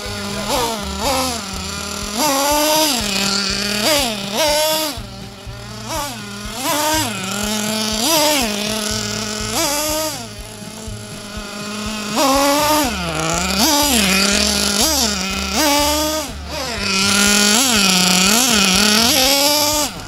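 Small two-stroke engine of a fuel-powered radio-controlled buggy, revving up and falling back over and over as the throttle is blipped, then held at high revs for a few seconds near the end. The exhaust note is loud and harsh.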